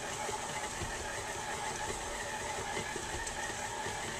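KitchenAid stand mixer's motor running steadily, its flat beater churning thick peanut butter cookie dough in a stainless steel bowl.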